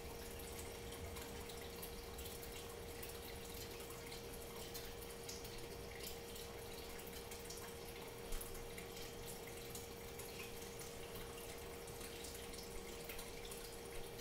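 Steady mid-pitched hum over a hiss, with scattered faint ticks and one sharper click about eight seconds in.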